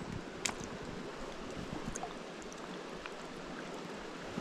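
River water running steadily over shallow gravel, with a faint tick about half a second in.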